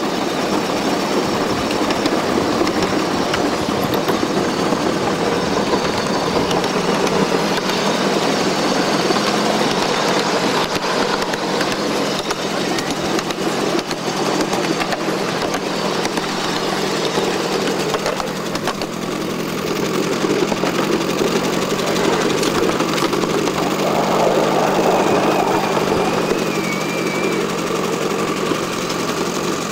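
Steady running noise of a ride-on live steam Shay train in motion, with its wheels rolling on the rails.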